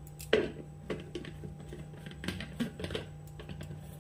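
Milk tea boiling in a stainless steel pot on a gas burner, its bubbles popping and ticking irregularly, over a steady low hum.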